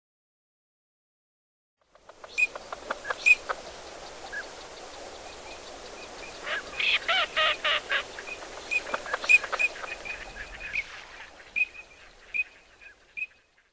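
Green-winged teal calling: short, high whistled peeps repeated through the recording, with a quick run of about half a dozen louder, harsher calls about halfway through. The calls start about two seconds in, over a steady outdoor hiss.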